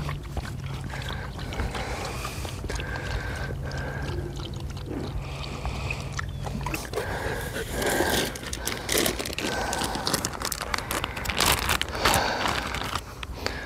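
Water being poured out and gurgling as a dog is given a drink, with irregular splashing and scraping. A steady low hum runs underneath and stops about seven seconds in.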